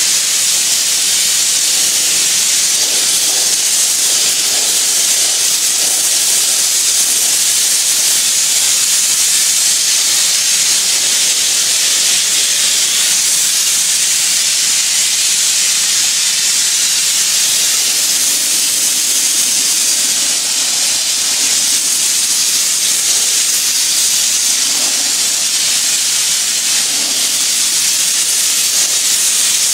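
Oxy-acetylene powder flame-spray torch burning steadily while spraying metal powder: a loud, even, high hiss of the flame and gas jet that never stops or changes.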